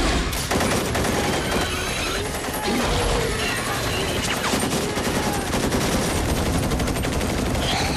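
Sustained automatic rifle fire, a dense rapid string of shots that keeps going without a break.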